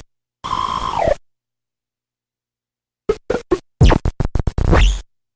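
Circuit-bent LeapFrog Phonics Pond toy making glitched electronic sounds: a short warbling tone that drops in pitch, then after a pause a rapid stutter of chopped, scratch-like bursts ending in a downward sweep.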